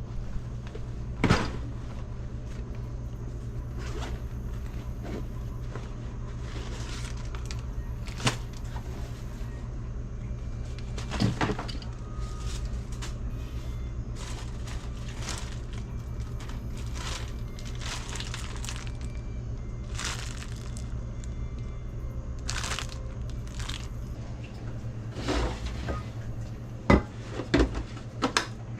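A steady low mechanical hum, like a motor running, with scattered knocks and clatters over it; the sharpest come near the end.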